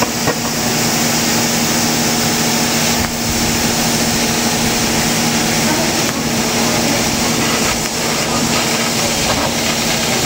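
Laser die cutting machine cutting a plywood die board: a steady hiss with a constant low hum underneath, dipping briefly a few times.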